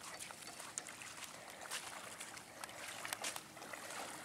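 Boot-foot chest waders wading into shallow water, with irregular small splashes and sloshes at each step.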